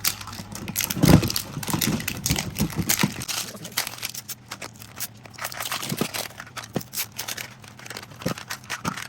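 Plastic Mini Brands capsules clicking and knocking against each other while being handled and sorted out of their case, with some crinkling. The clatter is busiest in the first three seconds, then comes in scattered clicks.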